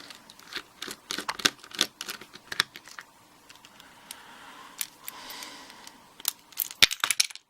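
Small metal parts of an American Lock A1100 padlock clicking and rattling as the lock body is taken apart and its internals come out. There are irregular sharp clicks, with a quick cluster near the end.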